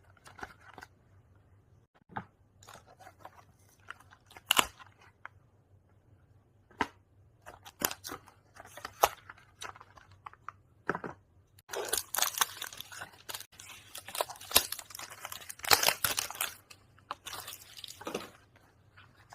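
Soap packaging being handled and opened: crinkling and crackling of wrapper and box with scattered sharp clicks and some tearing. It is sparse at first and turns into a busy stretch of crinkling in the second half.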